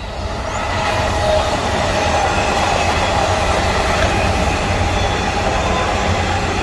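An electric suburban train passing close by on the line: a loud, steady rumble of wheels on rail with faint whining tones, building over the first second as it arrives.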